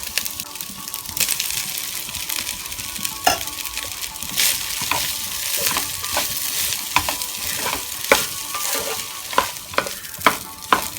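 Fried rice being stir-fried on a high flame in a heavy-bottomed kadai: a steady sizzle with a spatula scraping and knocking against the pan, the strokes coming more often in the second half.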